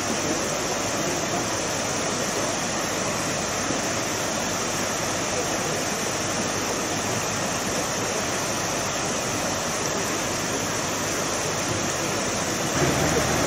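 Steady, even rushing noise, like a swollen creek running fast. Near the end it changes abruptly to a lower, louder sound.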